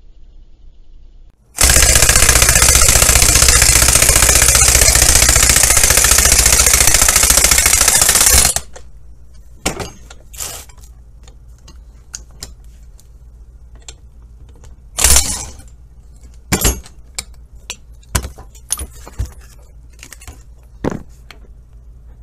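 Impact wrench running for about seven seconds, loud and steady, driving a ball joint press clamped in a vise to push a wrist pin out of a piston. It is followed by a series of short metal clinks and knocks as the parts are handled.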